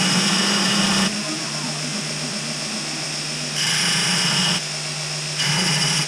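Electric power grinder running at a steady pitch, with three spells of louder, harsher grinding as the wheel bites into the jerry can's metal mount to widen it.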